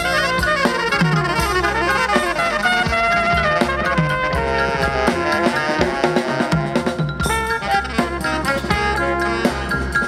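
Lively music led by horns over a drum kit, with a busy melody and a steady beat.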